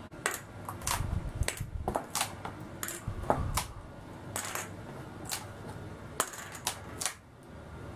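Steel binder clips clicking and clinking as they are handled at the gunwale of a wooden model dory and set down on a wooden tabletop: an irregular run of sharp metallic clicks, with a few dull knocks from the boat's hull against the table in the first couple of seconds.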